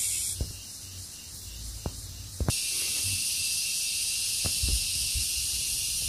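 Steady high-pitched hiss, which softens about half a second in and comes back abruptly about two and a half seconds in. A few soft footsteps and taps are heard as the person filming moves over rock.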